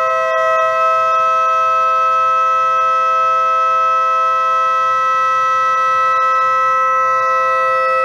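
Two metal organ flue pipes sounding together on the voicing rack's wind, a steady held interval of a third, as one pipe is tuned against the other.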